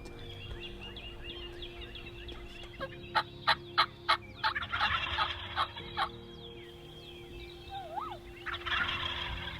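Wild turkey gobblers gobbling: a run of sharp, loud notes about three seconds in leads into a rattling gobble, and another gobble comes near the end. Small birds chirp throughout.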